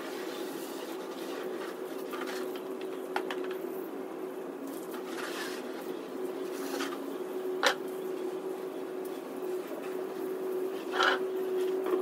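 Steady hum of a running machine, with a few brief hisses and sharp clicks, the loudest click a little after halfway and another near the end.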